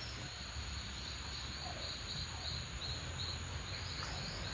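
Insects chirping in a steady rhythm, about three to four short high chirps a second, over a continuous thin high-pitched insect drone.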